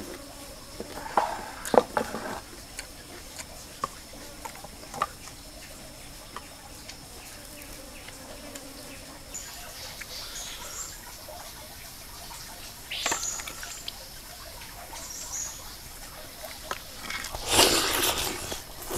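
Close-up eating sounds: crunchy chewing about one to two seconds in, a few small clicks of handling in the middle, and a loud wet bite into a whole grilled fish near the end. Under it all a steady high insect drone and the faint wash of a stream.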